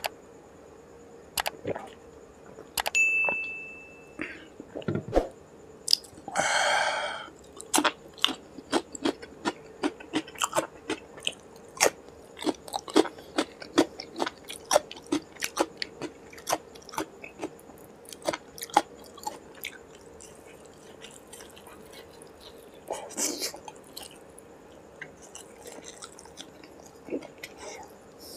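Close-miked eating sounds: drinking from a glass mug, a short ringing glass clink about three seconds in, then a long run of small wet clicks and mouth smacks as fingers work the rice and food is chewed.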